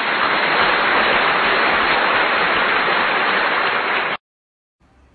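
Dense applause from a large crowd, an even wash of clapping that cuts off suddenly about four seconds in.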